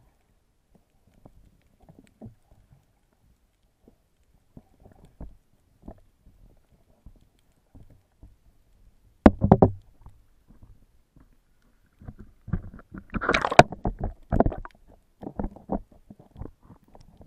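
Muffled underwater sounds of a snorkeler moving through shallow water, picked up by an action camera in its waterproof housing. There are faint scattered knocks at first, then a sudden louder burst about nine seconds in, then a run of irregular bursts through the last five seconds.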